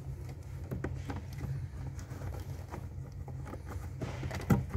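Hands feeding a wire behind a car's plastic interior trim panel: scattered light clicks and scrapes of plastic, with one sharp, louder knock near the end, over a steady low hum.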